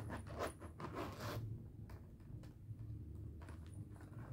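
The zipper of a pink plastic doll case being pulled open in short rasping strokes, most of them in the first second and a half and a few more near the end, with faint rubbing of the plastic in between.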